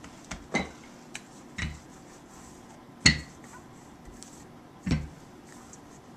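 A wooden rolling pin knocking and thudding on a tiled countertop while puff pastry is rolled out: four separate knocks, the loudest about three seconds in.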